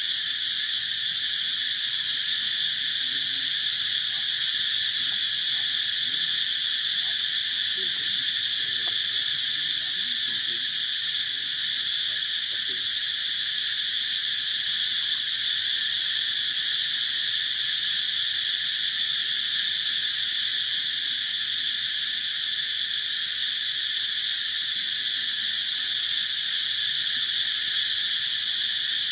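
A steady, high-pitched insect chorus, shrill and unbroken, with no change in level.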